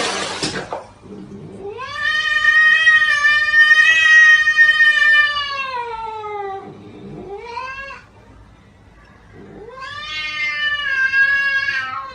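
A cat yowling: one long drawn-out yowl that rises and then falls, a short one, then another long yowl. Before the first yowl, a noisy sound from the previous clip cuts off under a second in.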